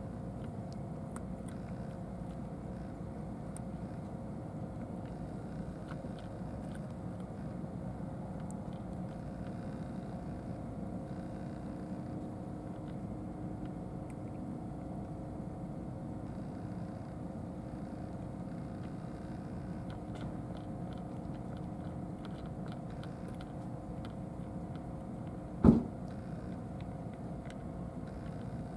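Two cats eating from plastic trays, with faint chewing and crunching clicks over a steady low background rumble. A single sharp knock comes near the end.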